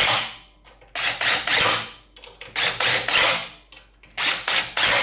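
Cordless driver running bolts into a cast water-pump housing in short runs of about a second each, three of them after a first one ends at the start, as the housing is bolted down onto the engine.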